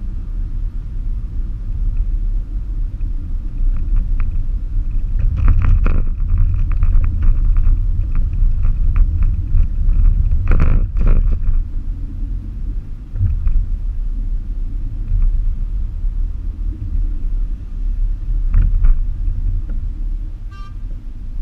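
Steady low rumble of a car driving on city streets, heard from inside the car through a dashboard camera. Scattered knocks and rattles come about five seconds in, again near ten seconds and near the end.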